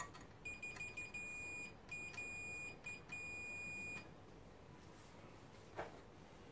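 A digital multimeter's continuity beeper sounds in a broken run of high beeps for about three and a half seconds while its probes are held on a woofer's terminals. The beeping stutters with the probe contact, and it shows that the woofer's voice coil circuit is closed, reading about 5 ohms. There is a light tap near the end.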